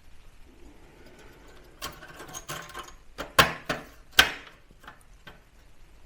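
Small hard parts being handled: a run of light clicks and rattles, with two sharp clicks about a second apart in the middle.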